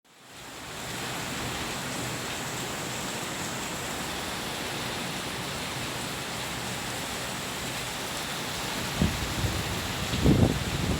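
Steady rain falling: an even hiss that fades in over the first second. About two seconds before the end, irregular low rumbling buffets set in beneath it.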